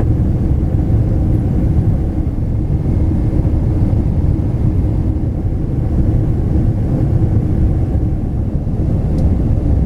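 Steady low rumble of engine and airflow noise inside a Boeing 777's cabin as the jet climbs out after takeoff.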